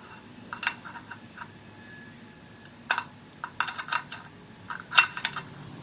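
Adjustable wrench clicking and clinking against metal in short, irregular taps while an air temperature sensor is tightened into an engine intake; the loudest clink comes a little before the end.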